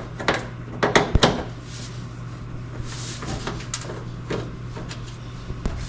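A series of sharp knocks and clunks from hard parts being handled and set in place during a heater installation, the loudest in the first second and a half, over a steady low hum.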